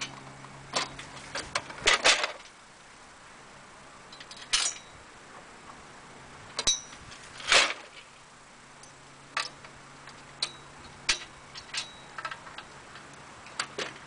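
Metal clanks, knocks and rattles from the outside reels of a gang reel mower being unpinned and dropped from their standing-up position onto the grass. The knocks come at irregular intervals, some ringing briefly, with the loudest about two seconds in and again past the middle.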